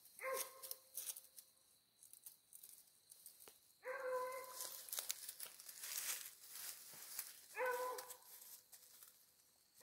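A hunting dog giving three short, drawn-out barks a few seconds apart, faint and distant: baying at an animal it has found, which the hunter suspects is an armadillo. Rustling and crackling noises come in between the barks.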